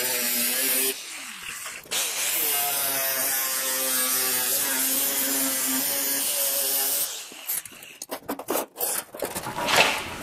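Angle grinder cutting through sheet steel: a steady, loud whine with a hiss. It breaks off about a second in, comes back a second later, and winds down around seven seconds in, followed by a few light clicks and knocks.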